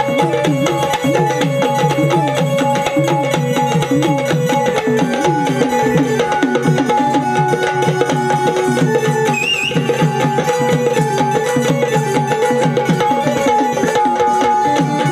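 Live instrumental Marathi folk music with hand drums playing a fast, even rhythm, under a melody that slides up and down over a steady held note.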